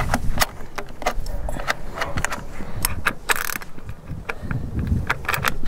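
Irregular light metal clinks and rattles from battery cables, clamps and tools being handled, with a short scraping rustle about three seconds in.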